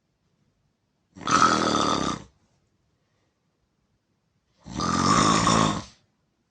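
A person snoring loudly: two snores of about a second each, roughly three and a half seconds apart.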